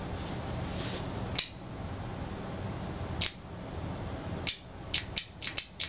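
Sharp clicks of the switch being worked: two single clicks, then a quick run of about six near the end. The trimmer's universal motor, wired to a 9.6-volt RC battery, never starts because the battery cannot supply enough current.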